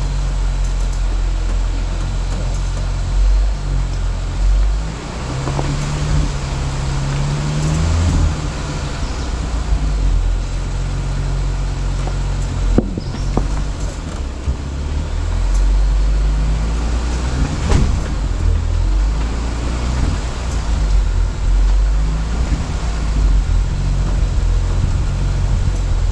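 Off-road 4x4's engine running at low speed under load as it crawls along a muddy trail, its pitch rising and falling with the throttle. A few sharp knocks come through about halfway in.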